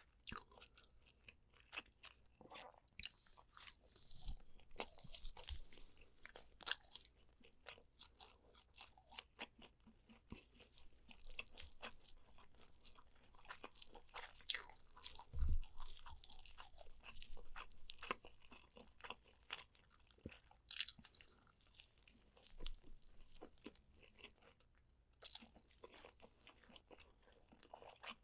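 Close-miked eating of spicy soy-braised pork ribs: irregular chewing and biting with many sharp, crunchy clicks, and a single low thump about halfway through.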